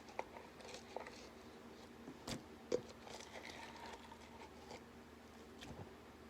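Homemade slime being handled: faint, scattered sticky clicks and squishes, the two loudest close together about two and a half seconds in.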